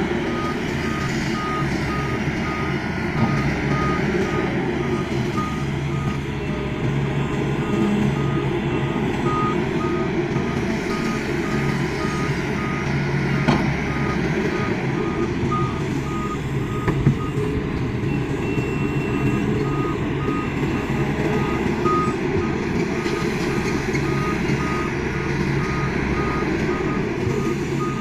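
Heavy diesel machinery engine running steadily while a backup/travel alarm beeps in a steady even rhythm on one high pitch, typical of an excavator moving.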